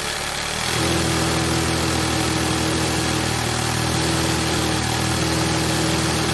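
Industrial sewing machine running continuously with a steady mechanical hum. About a second in it settles into a fuller, slightly louder run at a constant speed.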